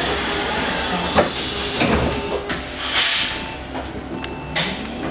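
Compressed air hissing steadily inside a Proterra Catalyst electric bus at a stop, with a few knocks and a louder burst of air about three seconds in.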